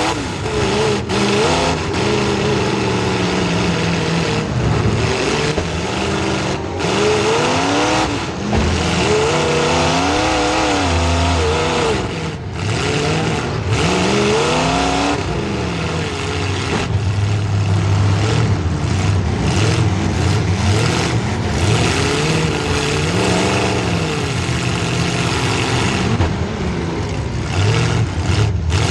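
Demolition derby car's small-block Chevy V8 revving hard and repeatedly, its pitch rising and falling as the throttle is worked, with a few brief drops as it lets off.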